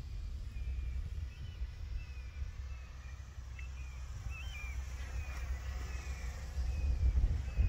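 Wind buffeting the microphone, gusting harder near the end, with small birds chirping repeatedly. Around the middle, the faint whine of the micro RC plane's electric motor can be heard passing overhead.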